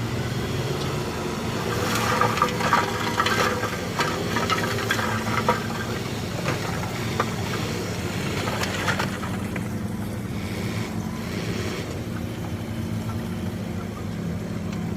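Heavy earthmoving machinery with its diesel engine running steadily. Metallic clanks and scraping over the first half or so then give way to the engine alone.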